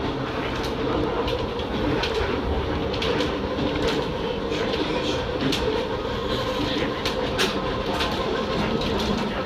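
Keisei 3700-series electric train running at speed through a curve, heard from inside the driver's cab: a steady rumble of wheels on rail with a steady hum, broken by irregular sharp clicks.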